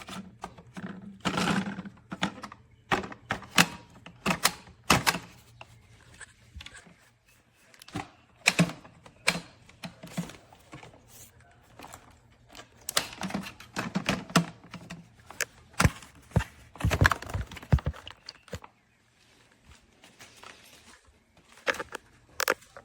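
Irregular clicks and knocks, with some rustling, from a Tineco iFLOOR 3 cordless wet-dry floor cleaner being handled after it reported a fault.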